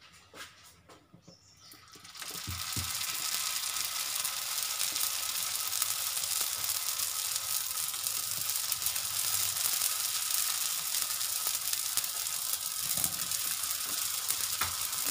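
Parotta dough laid on a hot oiled tawa begins sizzling suddenly about two seconds in, then fries with a steady hiss. A few faint clicks come before it.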